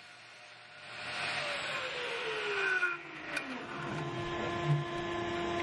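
An electric shop-machine motor whirring with a rush of air. Its pitch slides steadily down and then holds at a steady lower tone, with a light click or two near the end.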